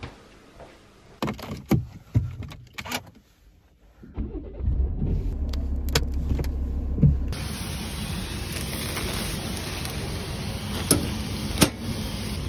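A few knocks and clicks from a kitchen cupboard being handled. Then a car's engine runs low, heard inside the cabin, with a click and a thump. Then steady outdoor street noise with two sharp clicks near the end.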